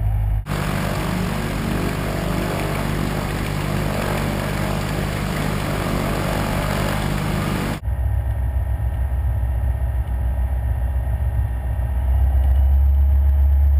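Diamond DA40 light aircraft's piston engine and propeller running just after start. From about half a second to about eight seconds in, a louder hissing mix of propeller and engine noise heard from outside; after that, the low steady engine drone from inside the cabin, growing louder near the end.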